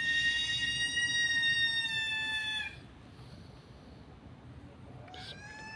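A long, steady, high-pitched animal-like call, held for about three seconds before it cuts off; a second similar call starts near the end.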